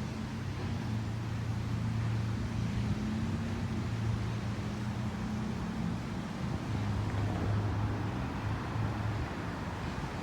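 Car engine running nearby with a steady low hum, over street traffic noise.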